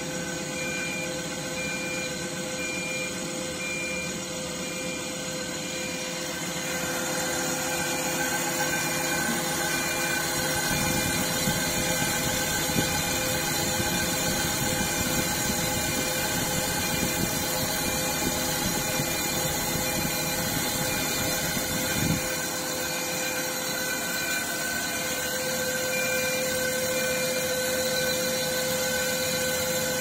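CNC wheel-repair lathe spinning an alloy wheel, a steady machine hum and whine with several fixed tones. From about 11 to 22 seconds in, a louder cutting noise joins as the turret tool turns the wheel face.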